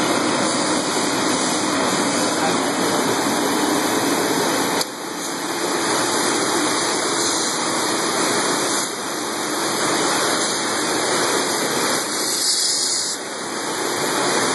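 Aloe vera washing and brushing machine running: a steady rush of water spraying from nozzles over the rotating brush rollers, dipping briefly a few times.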